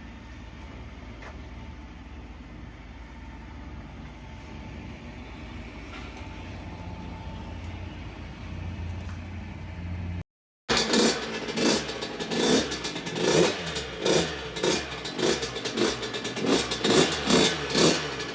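A steady low drone, then after a sudden cut a two-stroke dirt bike engine, the rebuilt 2004 Yamaha YZ125's single-cylinder two-stroke, revved in quick repeated blips, rising and falling about once or twice a second.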